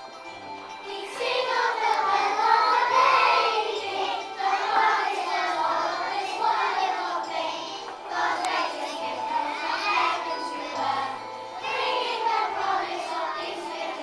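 A children's choir singing a Christmas nativity song over instrumental accompaniment; the voices come in about a second in.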